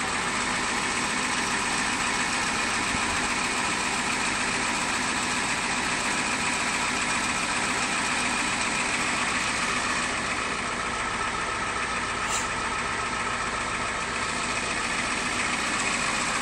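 Fire truck engine idling with a steady drone, heard from inside the cab.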